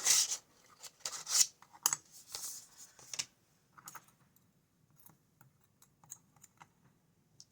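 Lock picks and their case being handled on a desk: a few seconds of rustling and scraping, then scattered light clicks and taps.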